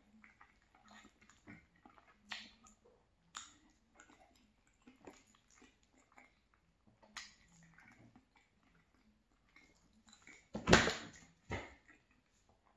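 Close-miked chewing of soft creamy cavatappi pasta: quiet wet mouth sounds and many small clicks. Near the end there is one louder short sound, with a smaller one just after it.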